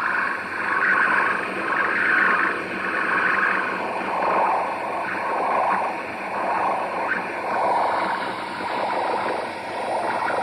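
A radio giving off a strange pulsing noise, a rough buzzing hiss that swells and fades about once a second and turns rougher about halfway through.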